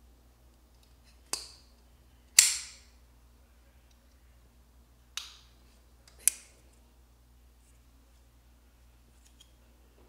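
Civivi Baby Banter folding knife's Damascus blade snapping open and shut twice by hand: four sharp clicks in two pairs about a second apart, the second click the loudest.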